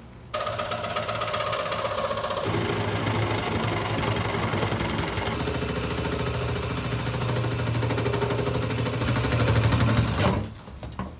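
Reciprocating saw cutting through a metal tube where it joins an old steel fuel tank. The saw starts just after the opening, runs steadily with a fast, even buzz of blade strokes, and stops abruptly about a second before the end.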